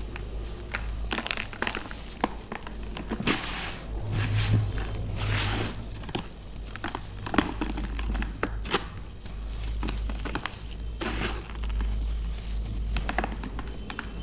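Chunks of baked baking soda being crushed and crumbled, giving an irregular run of sharp crunches and crackles with a few denser crumbling bursts, over a low steady hum.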